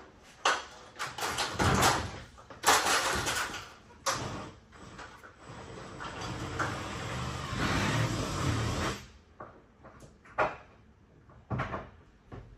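Hard plastic panels of a hunting blind scraping and knocking as they are worked together and bolted. A stretch of steadier grinding noise builds and then cuts off suddenly about nine seconds in, followed by a few light knocks.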